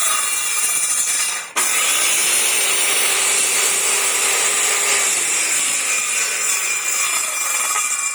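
Electric power tool cutting wood, a loud steady hiss of cutting that stops briefly about one and a half seconds in and then starts again. Its motor tone sinks about five seconds in.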